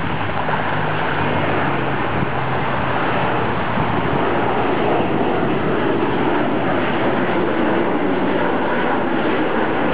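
McDonnell Douglas MD-80 airliner's tail-mounted Pratt & Whitney JT8D turbofans at takeoff thrust as it climbs out: a loud, steady jet engine roar, with a faint low hum early on.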